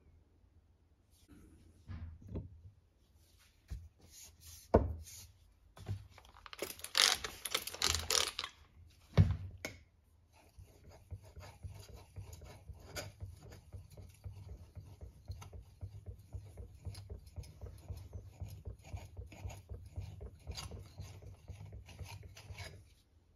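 Steel knife blade stroked back and forth across a sharpening stone, a quick, even rhythmic scraping that runs through the second half. In the first half there are a few sharp knocks, the loudest sounds, and a short burst of denser scraping.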